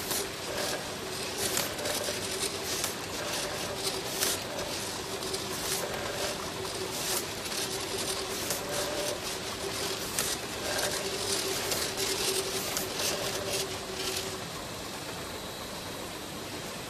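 Automatic bottle labeling machine running on a detergent bottle line: a steady motor hum under rapid, irregular clicking and clattering. The clicking stops about 14 seconds in, leaving a steady hiss.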